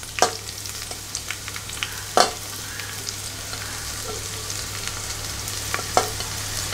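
Sliced onions sizzling as they drop into hot coconut oil in a stainless steel pressure cooker, a steady frying hiss. Three sharp knocks come about a fifth of a second, two seconds and six seconds in, as the plate taps the cooker's rim.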